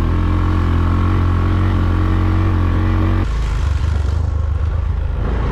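Motorbike engine running steadily at constant revs. About three seconds in, the sound changes abruptly to a lower, rougher, pulsing engine note.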